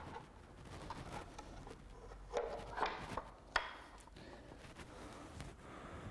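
Cut plywood woodblock pieces being shifted and fitted together by hand on a concrete floor: faint scraping with a few light wooden knocks, three sharper ones between about two and four seconds in.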